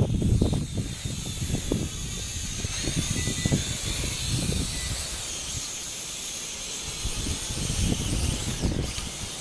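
Small toy camera quadcopter's four electric motors and propellers whining in flight, a high whine that wavers in pitch as the throttle changes. Gusts of wind buffet the microphone underneath.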